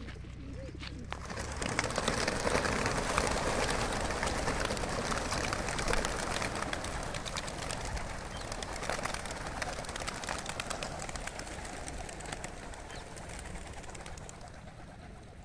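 A flock of racing pigeons released from opened transport crates and taking off together: a dense clatter of many wingbeats that swells about a second and a half in and slowly fades as the birds fly off.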